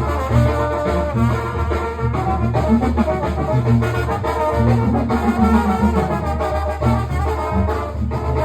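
Sinaloan banda playing brass band music, with trumpets and trombones over a pulsing bass line.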